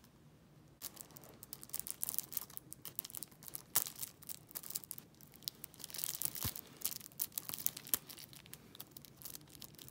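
Plastic shrink-wrap being torn and peeled off a Blu-ray case, a dense run of crinkling crackles that starts about a second in.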